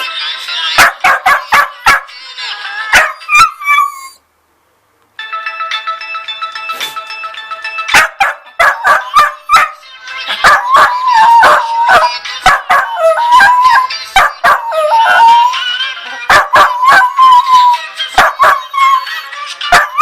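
A dachshund howling in long wavering notes, broken by many short sharp barks. The sound drops out for about a second after four seconds.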